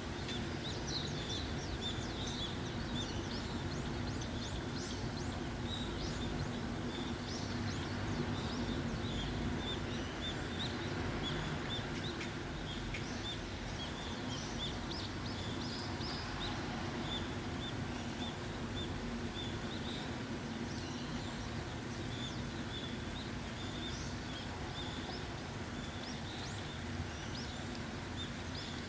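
Steady rainfall with small birds chirping: runs of short, high, quickly repeated chirps that thin out for a few seconds in the middle and come back.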